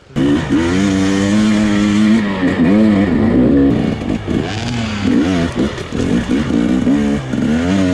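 Enduro dirt bike engine running under way, held at a steady pitch for about two seconds near the start, then revving up and down repeatedly as the throttle is worked.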